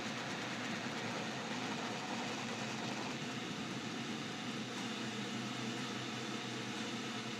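Steady fan-like hiss with a faint low hum, unchanging throughout.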